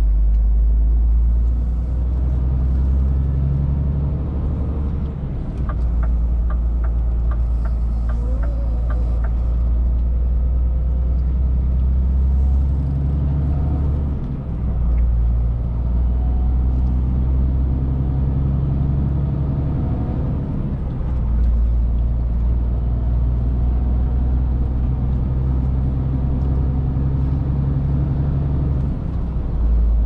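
Semi-truck heard from inside its cab on the move: a steady low engine drone with road noise that shifts in level a few times. About six seconds in, a short run of light, evenly spaced ticks.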